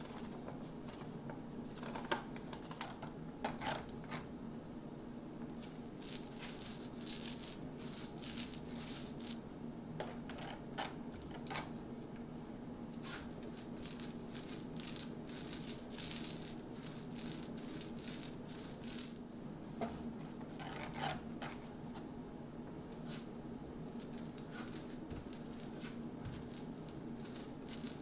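Small paint roller working wet epoxy onto plywood, making a sticky crackling in long runs of strokes, with a few light knocks a few seconds in.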